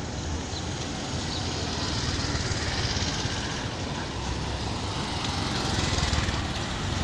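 Street traffic noise in which auto-rickshaw engines are running with a small-engine putter, getting a little louder about six seconds in.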